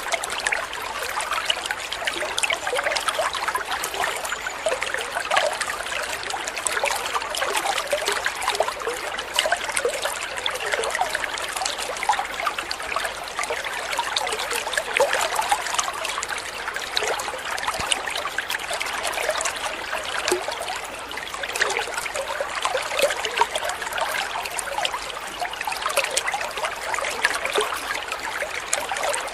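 Water trickling steadily down a homemade miniature waterfall built from a used water-cooler jug.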